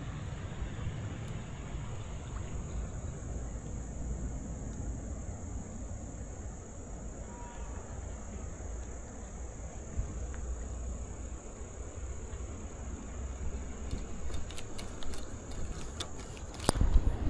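Insects buzzing steadily in a high thin drone over a low outdoor rumble. A run of sharp clicks and knocks starts near the end and grows louder.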